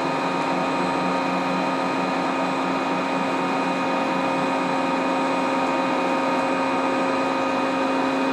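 CNC lathe axis drive moving the turret carriage along the bed on a return to home position: a steady machine whine of several held tones over a hum.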